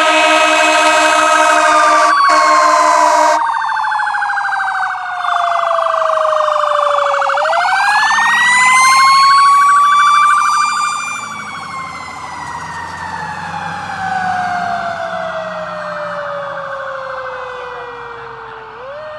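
Fire engine siren wailing, its pitch sliding slowly down over several seconds, rising quickly and sliding down again. A steady horn chord sounds over it, breaks briefly about two seconds in and cuts off about three and a half seconds in. It is loudest, with the engine rumbling under it, as the truck passes about nine seconds in, then fades as it drives away.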